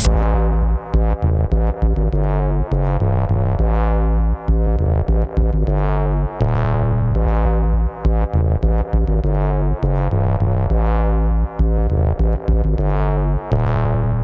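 Electronic dub music: a heavy synth bass and drum machine under chords played on synthesizer. The whole mix cuts out in short gaps again and again.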